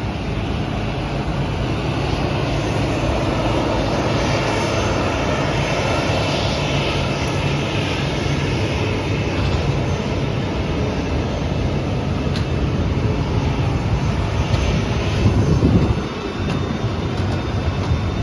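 Steady jet-aircraft noise on an airport apron: a continuous roar with a faint high whine. It dips briefly near the end.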